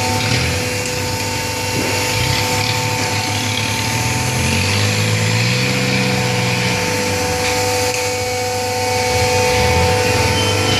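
Hydraulic baler's motor and pump running with a steady whine, a lower hum swelling and shifting in pitch in the middle.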